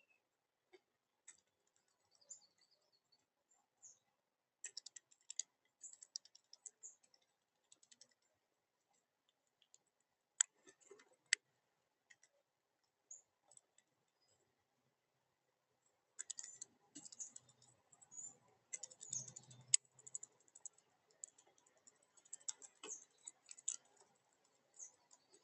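Birds pecking and tapping: scattered sharp clicks, coming in irregular clusters, with a few soft thumps.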